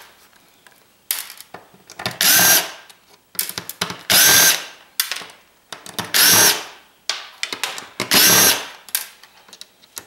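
Power screwdriver run in four short whirring bursts, about two seconds apart, backing out the screws that hold a circuit board in a metal chassis. Small clicks and taps of the screws and bit come between the bursts.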